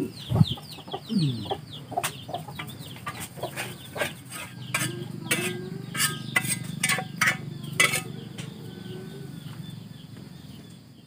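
Chickens clucking, with short high chirps near the start and a run of sharp knocks in the middle.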